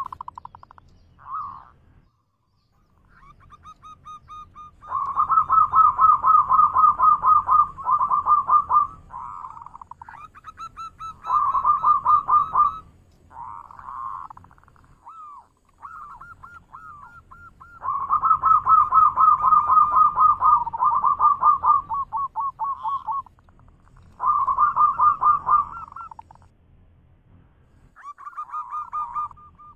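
Zebra dove singing its rolling cooing song: phrases of quick, staccato trilled notes repeated in several bouts, with short pauses between them.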